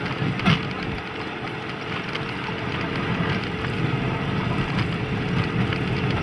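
Pionerka narrow-gauge railcar travelling along the track: its engine runs at a steady, low drone, with one short knock about half a second in.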